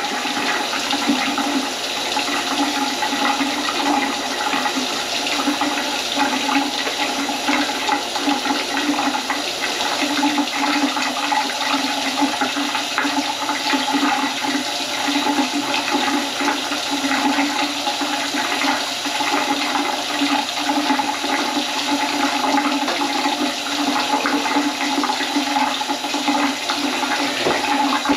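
Water running steadily in a kitchen sink and going down the drain, a continuous rush with a couple of steady humming tones in it.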